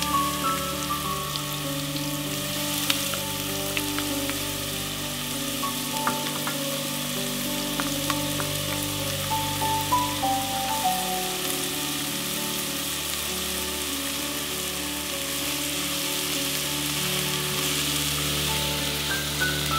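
Diced onion and bell peppers sizzling in olive oil in a pot, a steady frying hiss with a few light clicks. Soft background music plays under it.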